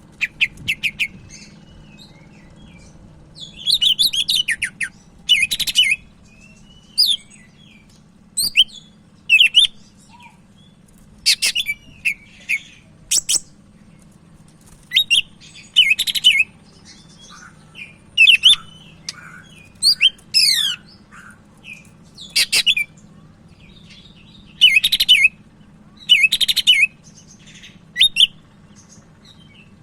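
Captive cucak ijo (green leafbird) in full song, giving short bursts of sharp, rapid, sweeping whistled notes, one phrase every second or two with brief pauses between. A faint steady low hum runs underneath.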